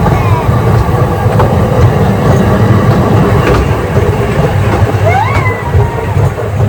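Small tourist train running through the park, a steady low rumble with occasional clacks. A short rising-then-falling squeal is heard about five seconds in.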